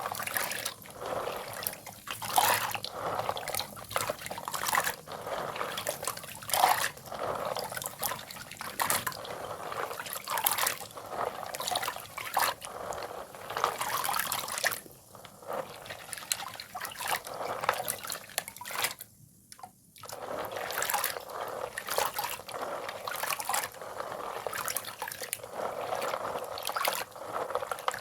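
Water-soaked broken chalk crumbling wet, an irregular crackle with dripping water, pausing briefly twice past the middle.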